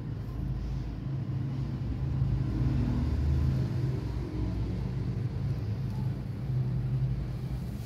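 A steady low mechanical hum and rumble, growing a little louder for a couple of seconds in the middle.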